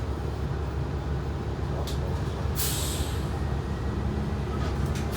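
City bus running, heard from inside: a steady low rumble, with a burst of air hiss from the air system about two and a half seconds in. A faint steady whine comes in near the end.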